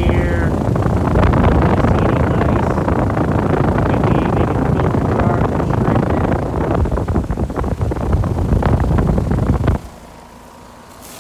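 Loud rushing air buffeting the microphone, with a ragged low flutter, cutting off suddenly near the end.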